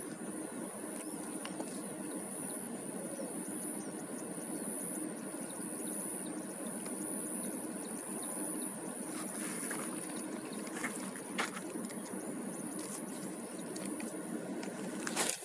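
Steady outdoor background noise with a constant thin high-pitched whine, broken by a few sharp clicks about ten seconds in and a louder one near the end.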